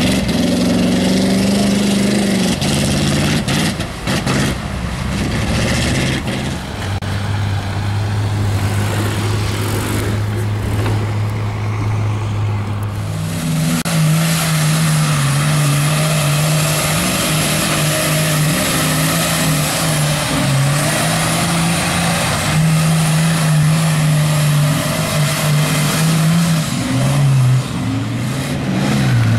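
Lifted 4x4 mud trucks' engines running at high, held revs as they plow through a mud bog pit. The engine note changes about halfway through as a different truck takes over.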